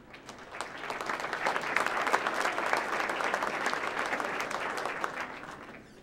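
Audience applauding, swelling over the first second or so and dying away near the end.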